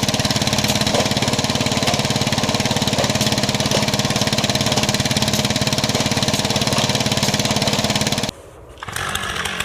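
Engine of a fast log splitter running steadily with a rapid, even pulse, then cutting off suddenly about eight seconds in.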